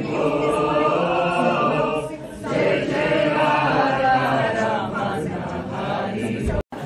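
A group of voices chanting or singing together in long held notes, with a brief break about two seconds in.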